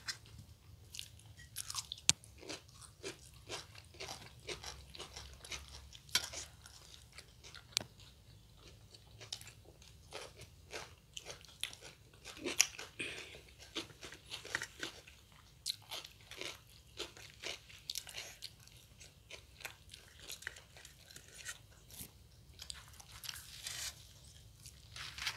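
Two people chewing and biting food close to a table microphone: irregular mouth clicks and crunches throughout, with the sharpest ones about two seconds in and again near the middle.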